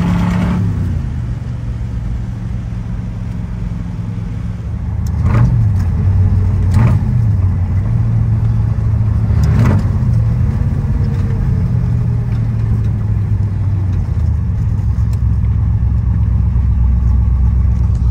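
1965 Corvette's 327, 365 hp solid-lifter V8 running through side pipes while driving, heard from inside the cabin. The engine note eases off about a second in and pulls harder again about five seconds in. Three sharp knocks come a second or two apart around the middle.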